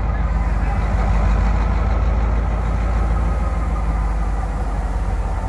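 EMD GL18B locomotive's V8 645 diesel engine running with a steady low drone, under the hiss of heavy rain.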